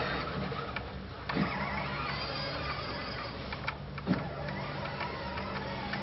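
A click-type torque wrench clicking sharply twice as motorcycle bolts are tightened to 22 Newton meters, over a steady background hum.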